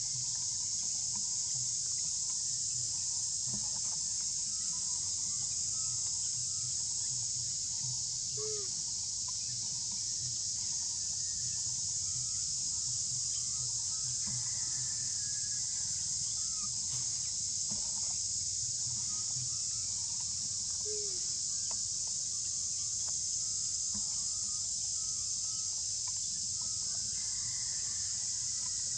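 Steady, high-pitched insect chorus running throughout. Faint short calls come through it, two of them short falling notes at about a third and about two thirds of the way through.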